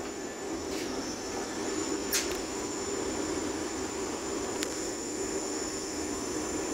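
Steady hum inside a Vande Bharat Express passenger coach, with a couple of faint clicks about two and four and a half seconds in.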